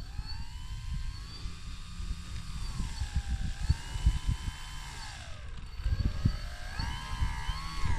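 Small RC plane's electric motor and propeller whining, the pitch rising and falling several times as the throttle is worked, with wind buffeting the microphone underneath.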